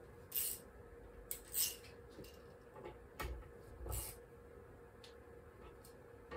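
Light metal clicks and scrapes, about six in the first four seconds, as steel feeler gauges and connecting-rod parts are handled on a crankshaft held in a vise.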